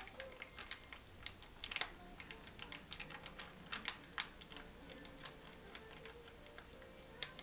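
Irregular light clicks and crinkles from a foil cat-food pouch being handled, torn and squeezed out into a bowl.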